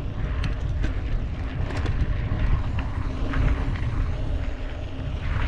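Mountain bike ridden over a rough dirt track: a heavy, steady rumble of wind buffeting the microphone, with tyre noise and scattered sharp rattles and clicks from the bike over the bumps.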